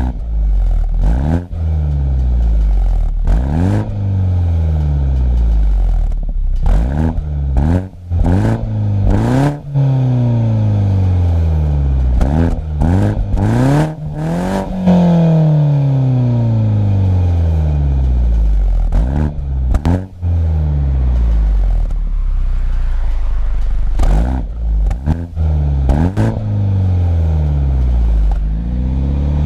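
BMW 125i's B48 2.0-litre turbocharged four-cylinder, heard through a full M140i cat-back exhaust, revving hard in repeated pulls. The pitch climbs and drops sharply at each gear change, with sharp pops and crackles in between and a long falling note as the revs run down about halfway through.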